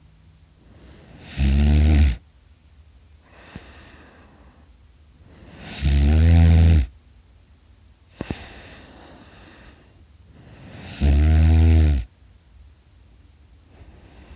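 A person snoring loudly. There are three low, droning snores about five seconds apart, each under a second long, with quieter breaths between them.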